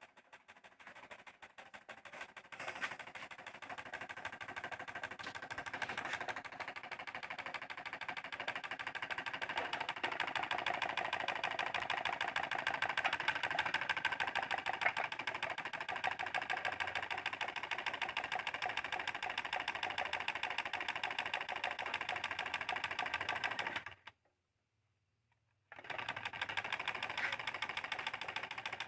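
Homemade tin-can gamma-type Stirling engine running with a rapid, even mechanical clatter from its crank and linkages, growing louder over the first few seconds. The sound cuts out completely for about two seconds near the end, then comes back.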